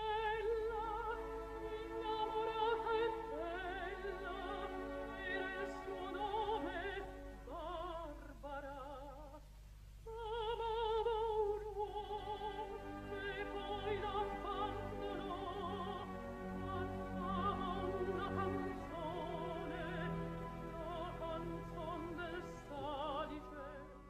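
Lyric soprano singing an operatic passage with strong, even vibrato, breaking briefly about ten seconds in before the next phrase. The narrow, old film soundtrack carries a steady low hum beneath the voice.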